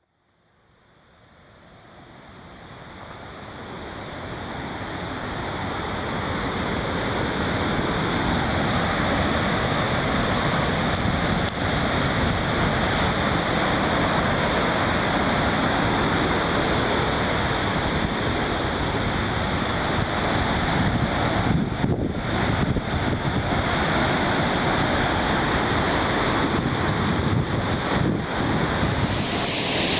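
Victoria Falls: the steady rushing roar of a large waterfall, with wind buffeting the microphone, fading up from silence over the first few seconds.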